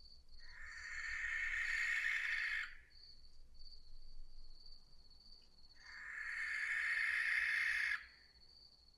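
Barn owl giving two long, harsh screeches, each about two seconds, the second starting about six seconds in and cutting off sharply.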